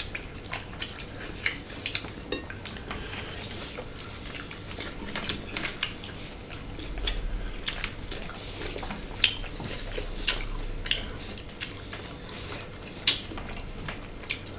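Eating by hand: fingers mixing and scooping salad against a ceramic plate and bowl, giving irregular sharp clicks and taps.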